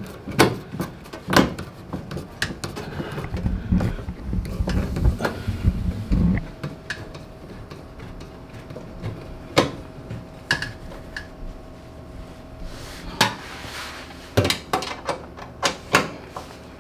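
Scattered clicks, knocks and handling clatter as a dishwasher kick plate is held in place and its screws are tightened, with a stretch of low rubbing and bumping about three to six seconds in.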